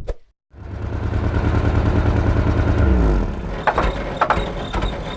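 A machine or motor hum starts up after a brief click and runs steadily, then winds down in pitch about three seconds in, followed by a series of sharp mechanical clicks about every half second.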